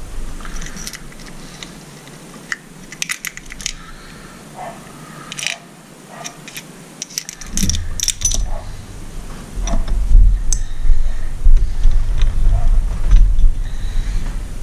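Steel connecting-rod caps and crankshaft parts of a two-stroke outboard powerhead clinking and rattling as they are handled and separated, a string of light metallic clicks. From about halfway through, heavier low knocks and bumps of parts being moved on the bench take over and are the loudest sounds.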